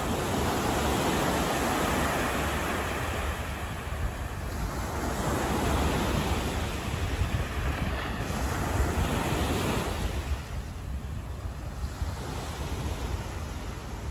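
Outdoor city street ambience: a steady rushing noise that swells and eases, growing fainter after about ten seconds.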